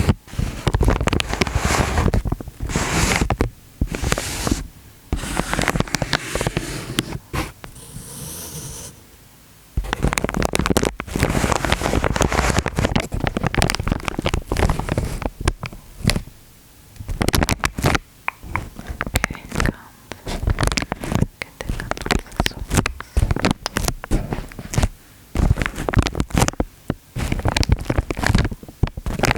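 Close-miked ASMR water sounds: liquid sloshing and splashing in irregular bursts, with crackling pops and short pauses.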